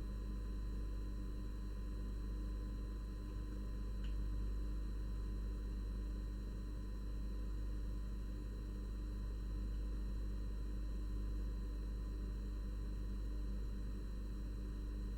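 Steady electrical hum with a faint steady high tone above it, and a single small tick about four seconds in.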